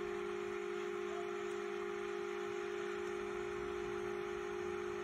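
A steady, even hum made of a few fixed tones over a faint hiss, with no change in pitch or level.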